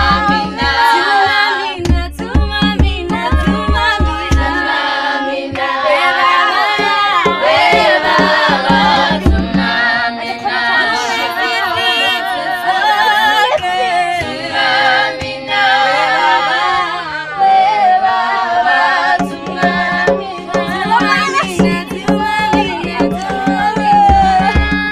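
A high school choir singing together, several voices with wavering, sustained notes. A rhythmic low beat runs under the singing near the start and again over the last few seconds.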